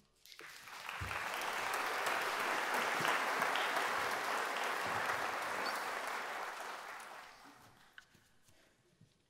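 Concert audience applauding at the end of a piece: the clapping rises quickly just after the orchestra's final note dies away, holds steady for several seconds, then fades out about seven to eight seconds in.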